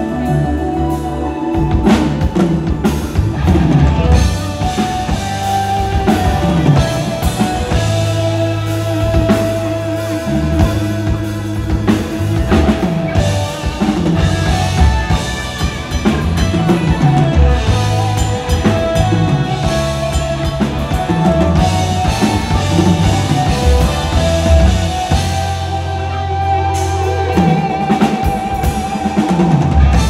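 Live pop band playing an instrumental passage with no vocals: drum kit with kick and snare driving a steady beat under keyboard and electric guitar, heard through the PA speakers.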